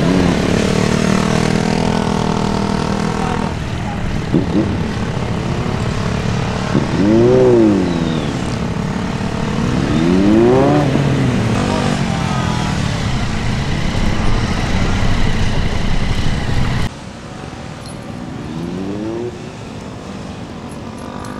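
Small- to mid-displacement motorcycle engine revving up and dropping back again and again as it is ridden in short bursts of acceleration and braking, over a steady noise haze. About seventeen seconds in the sound cuts abruptly to a quieter take in which the engine is heard more faintly, still rising and falling.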